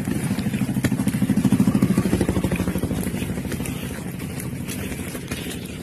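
Small motorcycle engine running close by, loudest about a second and a half in and then slowly fading.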